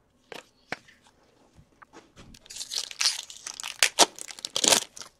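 Hockey card pack wrapper and cards being handled: a few light clicks, then dense crinkling and rustling from about two seconds in.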